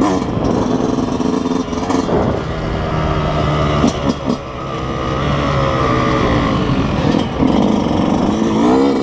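Yamaha YZ125's two-stroke single-cylinder engine running under the rider's throttle, its pitch rising and falling as he rides, with a brief drop in level a little after four seconds in as the throttle closes and reopens.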